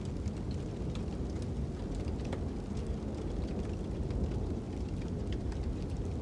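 Wood fire crackling with scattered sharp pops over a steady low rumble of wind.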